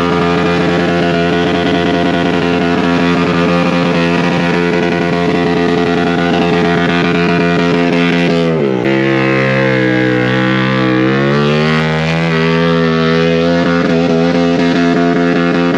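Sportbike engine held at high revs during a stationary burnout, the rear tyre spinning against the pavement. About eight and a half seconds in, the pitch drops sharply, then climbs back over the next few seconds.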